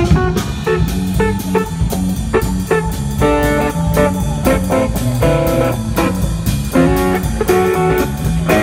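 Small live band playing blues-rock: electric guitar over a bass line and a drum kit keeping a steady beat.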